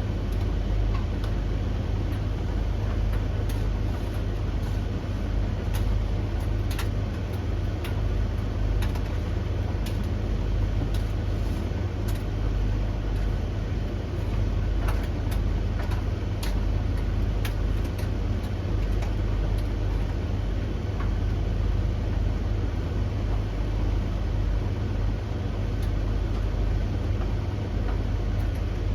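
Three domestic tumble dryers running at once: a steady low drum-and-motor hum, with scattered light clicks from things tumbling in the drums.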